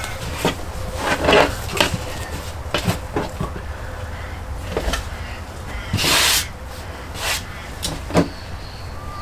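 Wild ducks being breasted by hand: a run of sharp clicks, knocks and scrapes of hands and knife working the birds on a plastic table, with ripping of skin and feathers. The loudest is a half-second rip about six seconds in, over a steady low rumble.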